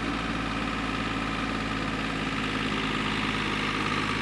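An engine idling steadily, an even, unchanging hum.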